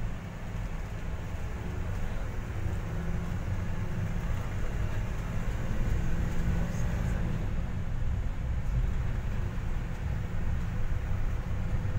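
Bus engine and road noise, a steady low rumble heard from inside the cabin while driving.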